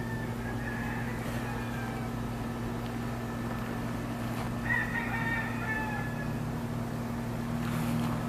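A lawn mower engine runs with a steady hum. A rooster crows twice over it, about half a second in and again near five seconds.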